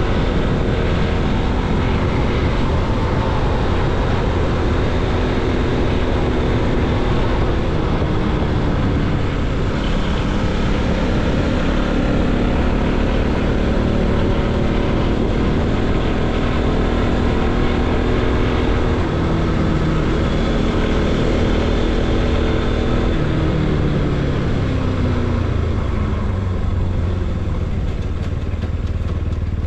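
Bajaj Pulsar NS200 single-cylinder motorcycle engine running under a rider, its note shifting with throttle and gears and dropping lower near the end, over a steady rush of wind and road noise.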